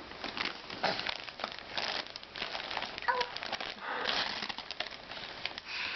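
Wrapping or packaging crinkling and rustling as it is handled: a dense run of small crackles.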